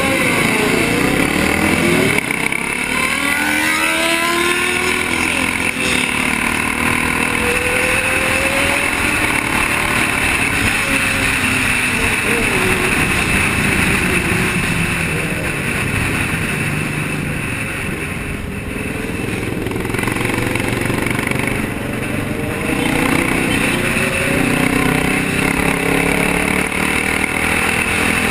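Sport-bike engines running and revving as a pack of motorcycles rides along, with engine pitch rising and falling several times in the first half over a steady rushing noise.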